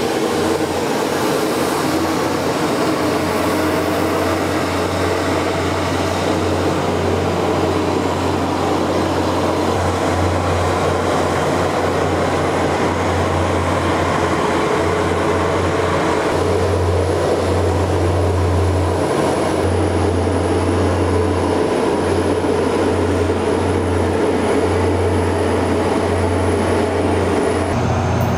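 Mobile launch platform carrying an Atlas V rocket rolling slowly on its rail bogies: a steady mechanical rumble with a low hum that swells and eases, and a faint high whine from about halfway in.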